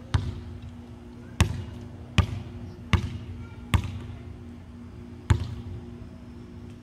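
Basketball bouncing on a hard floor: six bounces, mostly about three-quarters of a second apart, with a longer pause before the last. A steady low hum runs underneath.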